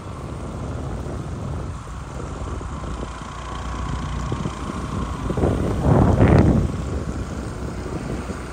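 A moving vehicle's engine and road rumble, with wind on the microphone, and a louder rushing swell about six seconds in.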